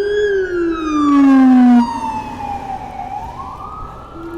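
Emergency vehicle's wailing siren, its pitch falling slowly and then rising again near the end, with a brief louder blast about a second in.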